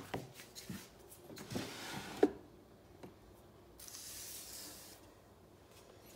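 Objects being handled: a few light knocks and a sharper tap about two seconds in, then a soft rustling hiss lasting about a second.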